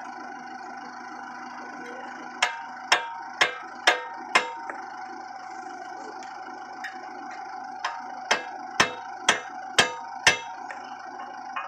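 Hammer blows on the steel frame of a tractor disc plough: two runs of sharp metallic knocks about two a second, five and then, after a pause, six, over a steady background hum.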